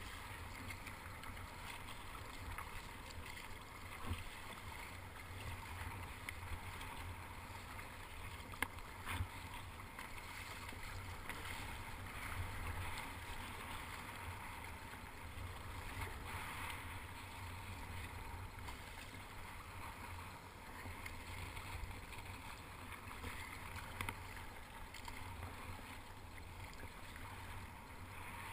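Water splashing and sloshing around a sit-on-top kayak being paddled through choppy sea, the paddle blades dipping and pulling through the water, over a steady low rumble. A few short sharp knocks stand out.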